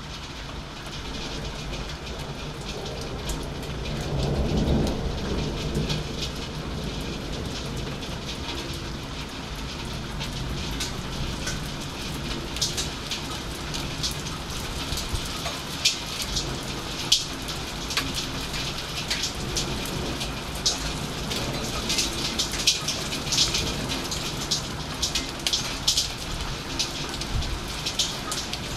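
Rain falling steadily through a thunderstorm, with a low rumble of thunder swelling about four seconds in. In the second half, sharp ticks of raindrops landing close by come thick and fast.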